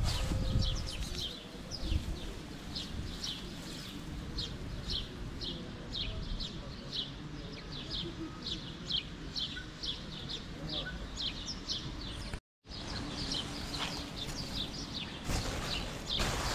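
A small bird chirping over and over, short high chirps about two or three a second, with a brief drop-out about twelve seconds in. A rustle near the end.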